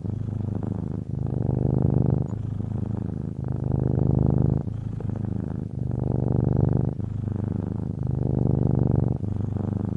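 Domestic cat purring steadily and close up, the purr growing louder and softer in turn with each breath, about once a second.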